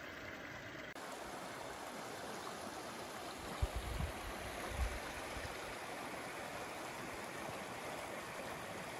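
Small mountain stream running over a shallow, stony riffle: a steady rushing and gurgling of water. A few short, low bumps come through around three and a half to five seconds in.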